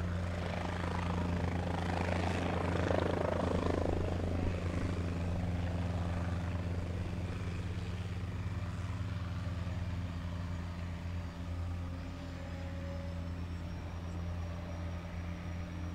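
Aérospatiale SA341B Gazelle's single turbine engine running on the ground with the rotor turning slowly: a steady low hum, with a rushing noise swelling in the first few seconds and a faint high whine rising slightly near the end.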